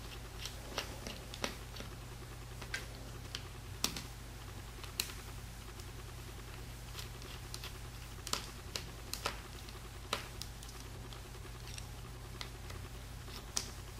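Faint, irregular small clicks and ticks of a Phillips screwdriver working the tiny retainer screws on a MacBook Pro logic board, with fingers handling the small metal parts, over a steady low hum.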